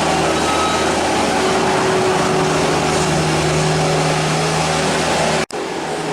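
Heavy compost-mixing machinery running steadily: a loud, constant mechanical drone with a steady hum. It cuts out for an instant near the end.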